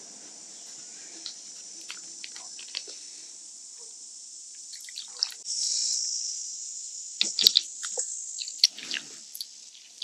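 Small clicks and wet splashes of a stir-fry sauce of soy, oyster sauce, sugar and vinegar being mixed in a bowl, with a short pour of liquid about five and a half seconds in and a cluster of spoon clicks near the end.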